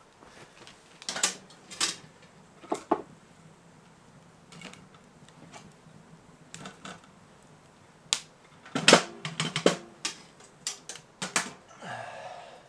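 Scattered sharp clicks and light wooden knocks of split kindling being handled beside a burning wood stove, with a quick run of them about nine seconds in and a short rustle near the end.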